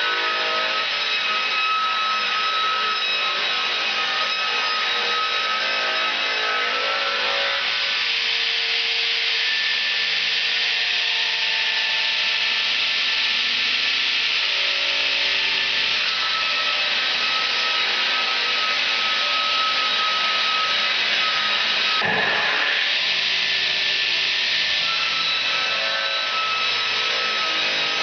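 Electric-motor circular sawmill blade ripping lengthwise through a log. A steady, loud whine with a constant hiss of the cut, briefly interrupted about two-thirds of the way through.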